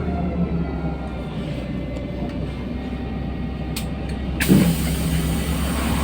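Steady low running hum inside a LiAZ-5292.67 city bus. About four and a half seconds in, a short thump and then a sudden loud, continuing hiss of compressed air from the bus's pneumatic system.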